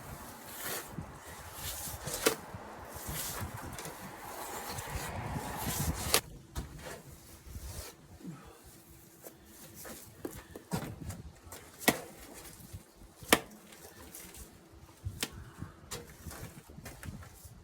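Hand work with mortar on stone: rough scraping for the first six seconds or so, then scattered sharp taps and knocks of a trowel against stone and mortar.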